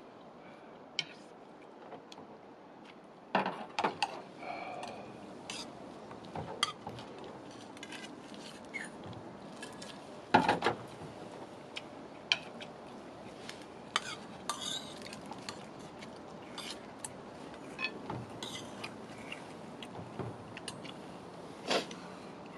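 Cutlery clinking and knocking against dishes while people eat: scattered short clicks, with louder knocks about three to four seconds in, about ten seconds in, and near the end.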